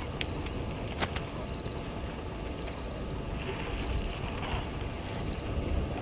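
Outdoor ambience from a waterhole webcam microphone: a steady low noise, with two or three sharp clicks about a second in and a faint higher hiss in the middle.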